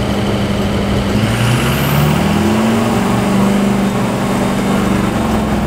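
Duramax turbo-diesel engine in a Humvee pulling under way, heard from inside the cab, its pitch climbing over the first couple of seconds as it accelerates and then levelling off.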